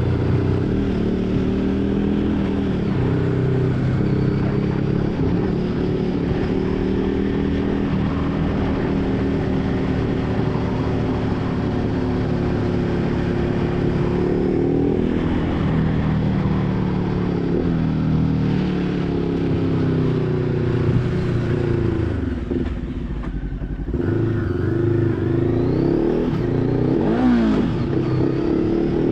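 Motorcycle engine heard from the rider's position, its pitch rising and falling with the throttle. It eases off briefly about three-quarters of the way through, then pulls again.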